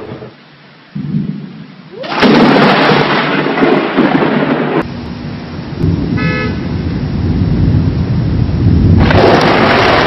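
Thunderstorm: thunder rumbling low, with a loud rushing noise from about two seconds in and again near the end. A short car horn toot sounds about six seconds in.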